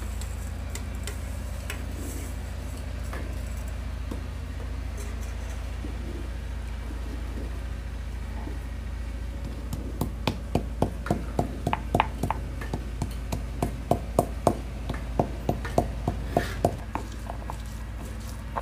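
Hand-held grinding stone knocking against a flat stone grinding slab (sil-batta) as mustard seeds and spices are crushed, a run of sharp knocks about three a second starting about halfway through. A steady low hum underlies it.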